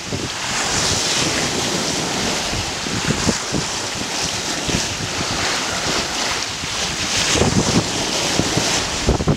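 Bow wave and wash rushing along the hull of a wooden sailing lugger under way through a choppy sea, with wind buffeting the microphone in gusts.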